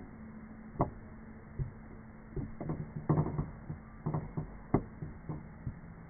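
A series of short, irregular knocks and clicks, bunched together in the middle, over a steady low hum.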